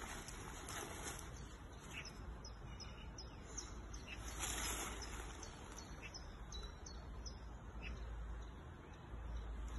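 Birds chirping in short calls over a low wind rumble on the microphone, with rustling as a paragliding harness's fabric and buckles are handled, loudest about four to five seconds in.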